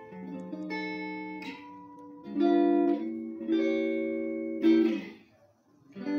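Background music: a guitar strumming chords, struck several times, with a short break about five seconds in.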